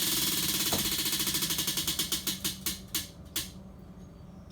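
Mystery ingredient wheel spinning: a rapid run of ticks that slow down and space out, ending with a last few separate clicks as the wheel comes to a stop.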